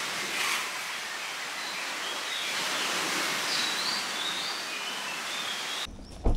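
Steady outdoor hiss with a few faint bird chirps over it, cutting off about six seconds in.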